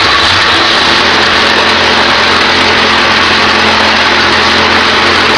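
Wood lathe running steadily at speed, a loud even whir with a low hum underneath.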